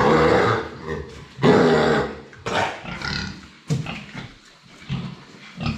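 Pigs in a pen making loud, harsh sounds: two long ones in the first two seconds, then several short sharp ones.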